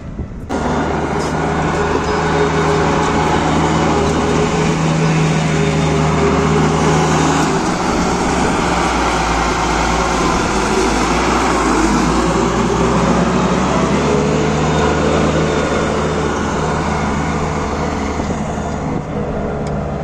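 Komatsu motor grader's diesel engine running steadily while the grader works the loose soil of the road bed, starting about half a second in.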